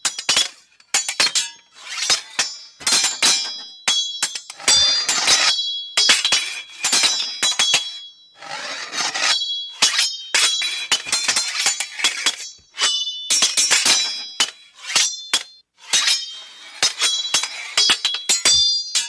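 Glass clinking and shattering sounds in quick succession, sharp clicks with high ringing tones, coming in clusters a second or two long with brief gaps between them.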